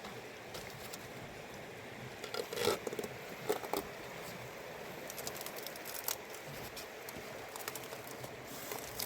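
Scattered light clicks, taps and brief rustling over a steady hiss, with the loudest rustling a little over two and a half seconds in.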